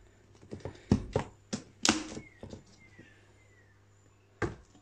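Clicks and knocks of a clear plastic box and its lid being handled, several in quick succession, with a faint short squeak of plastic after them and one sharper knock near the end.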